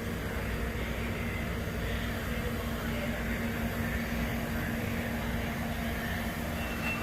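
Steady low rumble with a constant droning hum, unchanging throughout: background machine or traffic noise.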